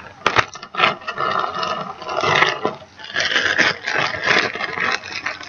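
Clear plastic project bags crinkling and rustling as they are handled, with a few sharp clicks near the start.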